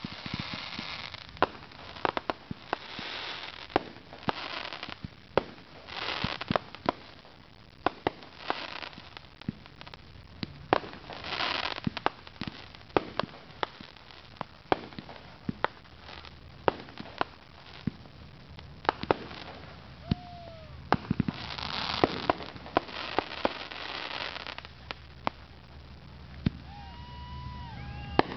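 Fireworks going off: many sharp bangs from bursting shells in irregular quick succession, several followed by about a second of crackling from the stars.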